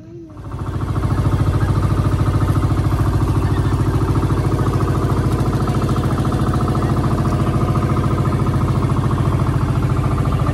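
Engine of a motorized bangka outrigger boat getting under way: it rises within the first second to a loud, steady run with a fast, even pulse.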